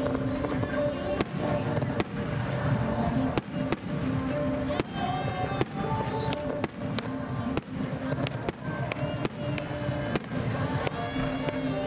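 Star mine fireworks display: about a dozen sharp aerial shell bursts at uneven intervals. Accompanying music with long held notes plays underneath.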